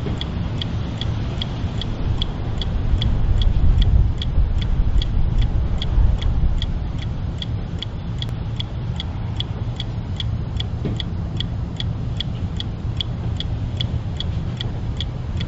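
A clock ticking steadily, about three ticks a second, over a low rumble of road traffic that swells briefly a few seconds in.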